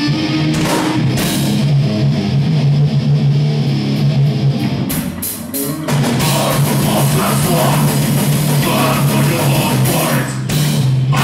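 Live death/thrash metal band playing: electric guitars and bass over a drum kit. About five seconds in, the band drops out briefly with a few sharp hits, then comes back in full.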